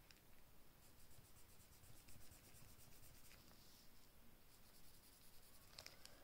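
Faint scratching of a pen writing, ink being marked onto a savings challenge tracker.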